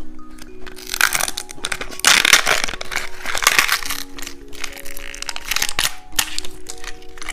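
Candy and its packaging being handled and broken open, a run of crackling and crunching that is densest a couple of seconds in, over background music with a simple melody.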